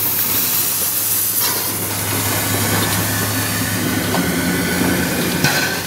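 Steam tank locomotive L 507 and its carriages moving slowly past: a loud, steady hiss of steam over a low, steady hum, with two sharp clicks, the second and louder near the end.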